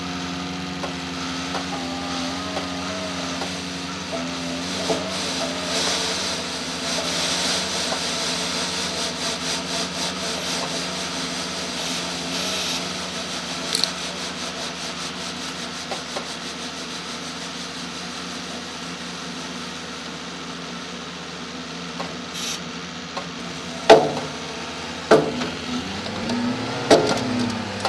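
Volvo FH12-460 truck's 12-litre straight-six diesel running steadily as the truck drives slowly. Near the end come three loud knocks.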